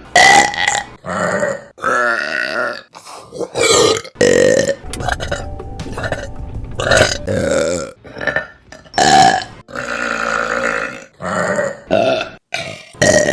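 A rapid string of loud burps from women, one separate burp after another about every second, each a short rough belch with a strong pitch, some longer and drawn out.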